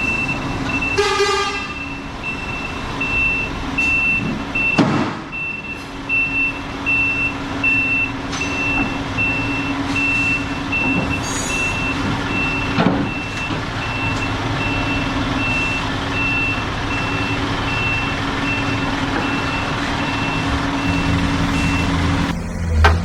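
Truck reversing alarm beeping about twice a second over the steady hum of the running engine, stopping just before the end. A brief horn-like tone sounds about a second in.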